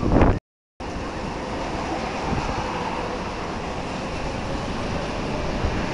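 Typhoon wind blowing hard along a wet street, a steady dense rush with wind buffeting the microphone. A short loud gust hits right at the start, then the sound cuts out for a moment before the steady wind carries on.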